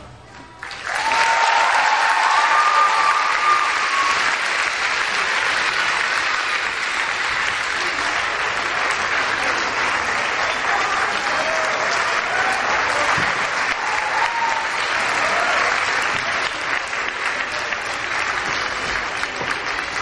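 Audience applauding, with a few voices calling out over the clapping; it starts about a second in, just after the music stops.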